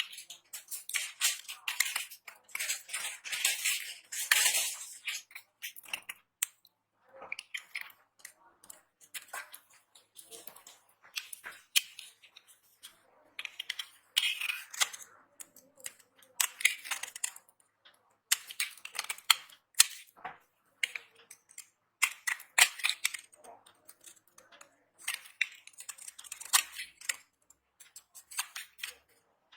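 Knife cutting and crushing dry soap: crisp crackling, scraping strokes in repeated bursts of a second or two, with short pauses between them.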